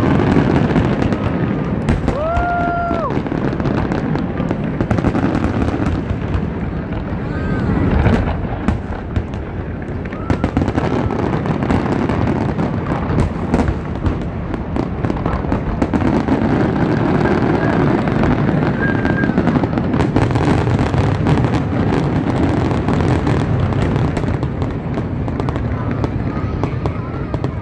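Aerial fireworks shells bursting in a dense, continuous barrage of booms and crackles, with a louder burst about eight seconds in.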